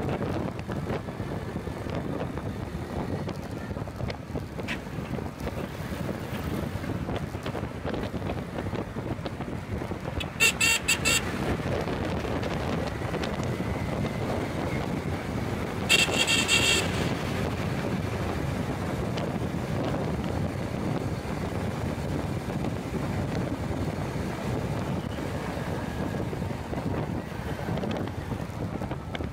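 Steady road-traffic rumble and wind buffeting from a moving vehicle, with vehicle horns honking twice: a few short toots about ten seconds in and a longer blast a few seconds later.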